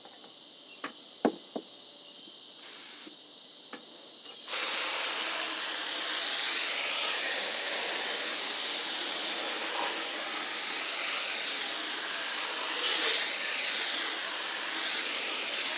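Garden hose spray nozzle hissing as it jets water onto the dirty fin coil of a rooftop RV air conditioner, rinsing the coil clean. The spray starts suddenly about four and a half seconds in and then runs steadily.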